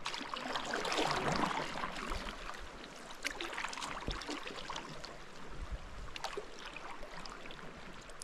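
Water splashing and trickling around a sea kayak, with scattered drips. It is a little louder for the first couple of seconds.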